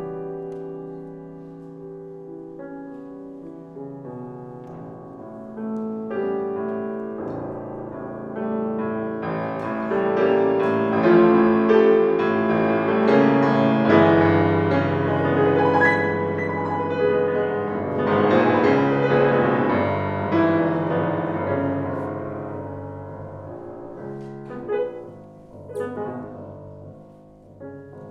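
Solo grand piano playing a classical piece, starting quietly, swelling to loud full chords through the middle and falling back quieter near the end, with a few sharp accented notes.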